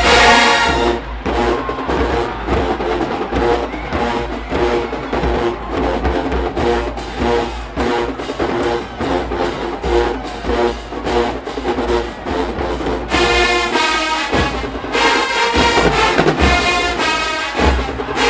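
HBCU marching band playing in the stands: brass section over a drum beat, with heavy low bass.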